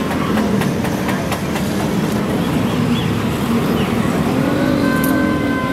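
Road traffic: vehicle engines running, with a horn sounding steadily near the end.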